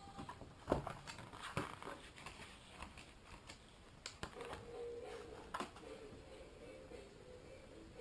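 Scattered light taps and knocks of a paintbrush dabbing paste onto a silicone diving mask on a mannequin head and dipping into a plastic plate, with the head being handled on the table.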